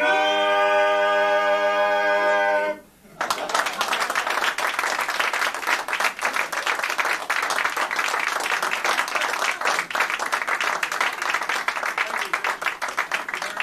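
Male barbershop quartet holding the final chord of a song a cappella for about three seconds, cut off together, then an audience clapping and applauding.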